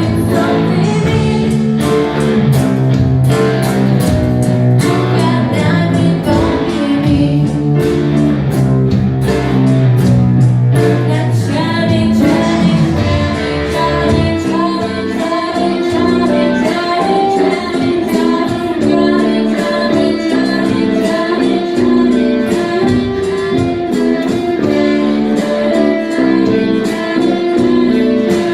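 A band playing a guitar-led song with singing, recorded live at a rehearsal.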